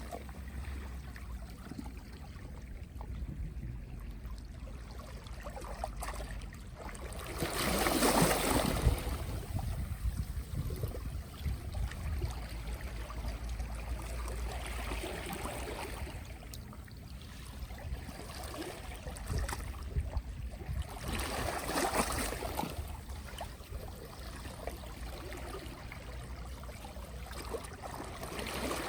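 Small, gentle sea waves washing in and draining back over the shore in a steady cycle. Each wash swells and fades over a few seconds, roughly every six or seven seconds, and the loudest is about eight seconds in.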